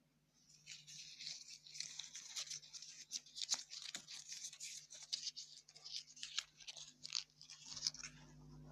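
Dense crackling and scratching, a fast run of small rustles and sharp clicks that starts about half a second in and eases off near the end.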